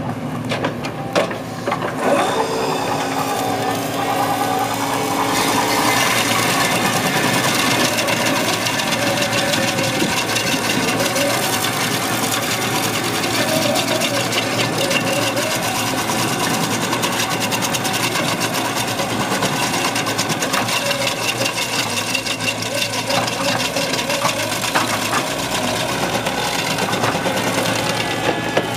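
Excavator-mounted stump grinder's spinning cutter wheel chipping into a stump in a fast, steady chatter, with a screw-type stump crusher boring into wood and the excavators' diesel engines running under load. It builds up over the first couple of seconds and holds steady and louder from about six seconds in.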